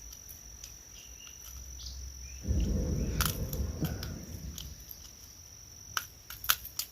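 A steady high insect drone, like crickets, runs throughout. About two and a half seconds in a louder low rumbling noise, like handling or wind on the microphone, lasts about two seconds, and a few sharp clicks come near the end.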